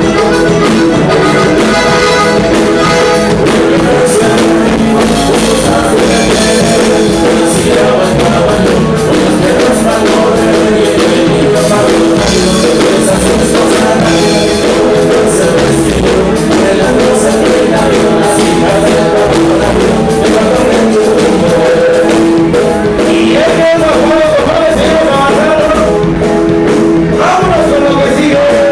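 A band playing, with guitar, drums and singing, loud and continuous throughout.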